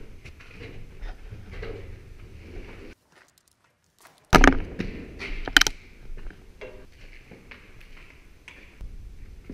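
Footsteps and scuffs in an echoing concrete room, broken by about a second of silence, then two loud knocks about a second apart and a few fainter knocks.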